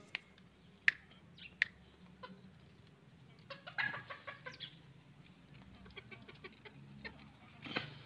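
A hen clucking quietly in short, scattered calls, most of them in a cluster about four seconds in, with a few sharp clicks in the first two seconds.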